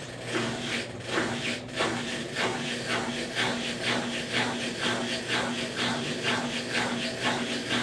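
Consul Facilite CWC10 10 kg washing machine in its wash stage, agitating the load: rhythmic swishes of water and clothes about twice a second over a steady motor hum.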